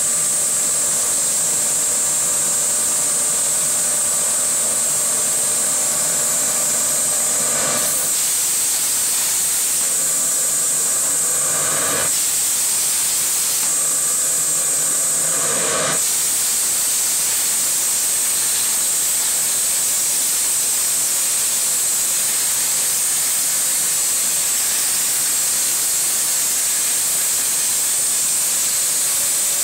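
Torchmate CNC plasma cutter at work: a loud, steady hiss from the torch. A humming drone of several steady tones runs under the hiss for about the first quarter, then twice more briefly, and after that the hiss carries on alone.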